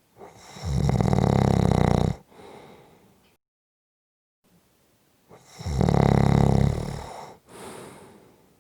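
Someone snoring: two loud, rattling snores about five seconds apart, each followed by a softer exhale that fades out.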